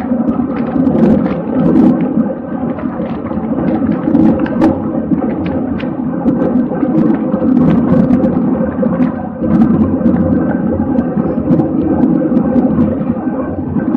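Wind rushing over the microphone of a camera riding on a racing bicycle at speed, a steady rough rumble with scattered sharp clicks and rattles throughout.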